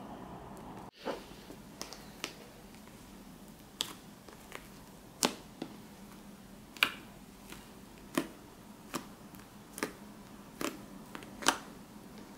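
Fluffy slime made with shaving foam, lotion and hand soap being pressed and squeezed by hand, giving sharp popping clicks about once a second, a few of them much louder. The pops are the air bubbles that make the slime bubbly and noisy to touch.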